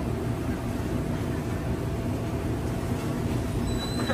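Steady low rumble with a faint mechanical hum.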